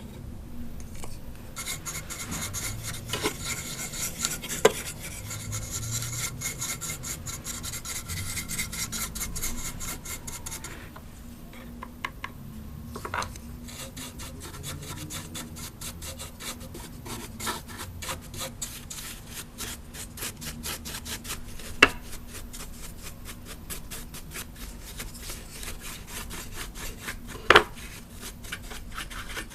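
A large soft brush sweeping over a plastic Halloween village decoration, a steady rapid bristly scratching as it dusts the plastic surface. A few sharp little knocks stand out, three of them louder than the rest.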